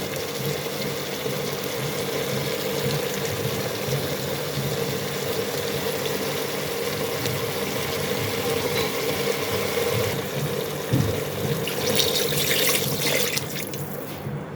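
Tinday gosht (round gourd and mutton curry) cooking in a pot: a steady sizzling hiss, with a few light clinks near the end.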